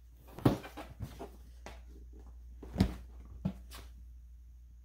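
Handling noises: a few knocks and thumps, the two loudest about half a second and nearly three seconds in, over a steady low hum.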